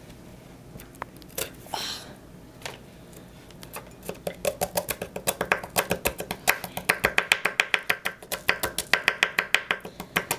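A knife chopping green onions on a wooden cutting board: a few scattered taps at first, then from about four seconds in a fast, even run of chopping strokes.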